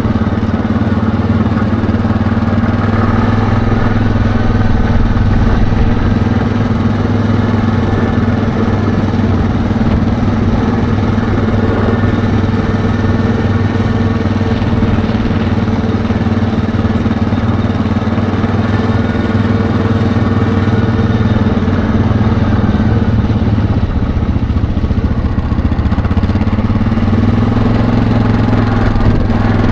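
ATV engine running at a steady speed while riding over sandy tracks, an even low drone with no change in pitch.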